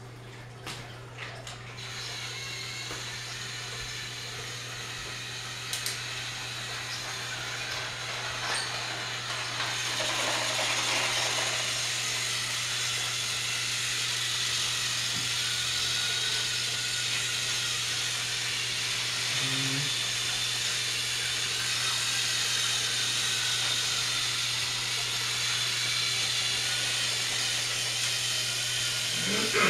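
Many battery-powered Thomas & Friends toy trains running at once on plastic track: a steady whirring hiss of small motors and wheels that builds over the first ten seconds and then holds. A few clicks come near the start.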